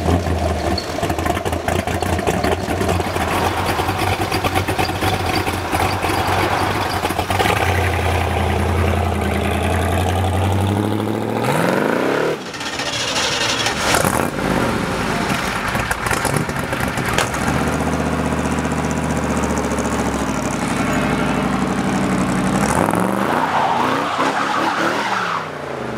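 Hot rod engine running and pulling away, its pitch rising about ten seconds in. The sound breaks off abruptly shortly after; another old car's engine then runs steadily and rises again near the end.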